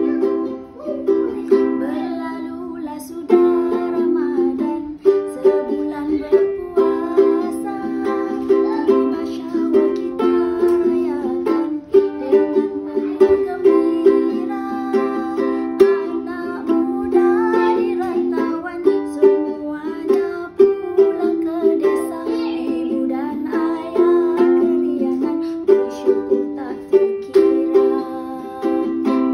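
Ukulele strummed in chords, a solo instrumental tune with a steady strumming rhythm.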